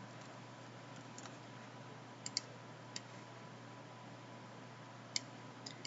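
A few short, sharp clicks at the computer, two close together a little over two seconds in and single ones about three and five seconds in, over a faint steady hiss and hum.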